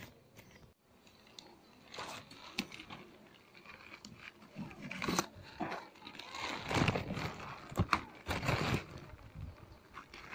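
Irregular crunching, scraping and crinkling handling noises with scattered clicks and knocks, heaviest about halfway through and again a few seconds later.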